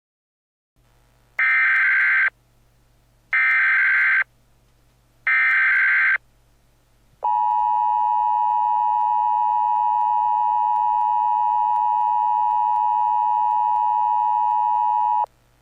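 Emergency Alert System alert opening: three short bursts of SAME header data tones, each about a second long with a second's gap between them, then the steady two-tone EAS attention signal held for about eight seconds before it cuts off. It marks the start of an emergency alert, here a tornado warning.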